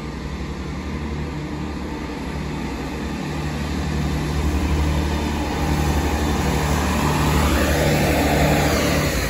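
Class 165 Networker Turbo diesel multiple unit moving slowly through the station, its underfloor diesel engines running with a steady low hum. It grows louder as the train approaches and is loudest near the end as it passes close by.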